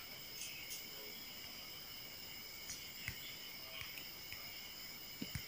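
Faint steady high-pitched background drone, with a few soft clicks and taps scattered through it, two close together near the end.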